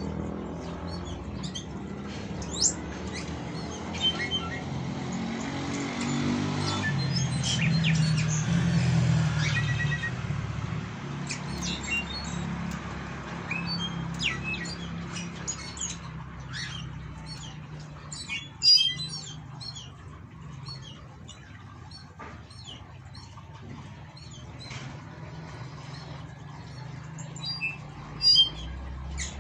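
Caged jilgueros (songbirds) giving short, high chirps and calls again and again, with a few louder sharp notes, in courtship. A steady low hum runs underneath and is stronger in the first half.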